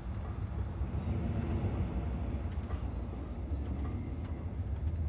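Moving train heard from inside the carriage: a steady low rumble of wheels on the rails, with a few faint ticks and rattles.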